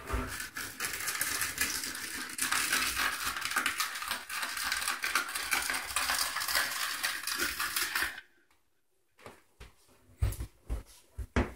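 A long flat smoother scraping through freshly poured self-leveling underlayment on the floor, a continuous rough scrape that stops abruptly about eight seconds in. A few light knocks follow near the end.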